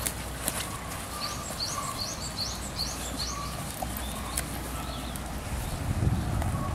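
A bird singing in the background: a quick run of about eight high chirps. Near the end, wind rumbles on the microphone.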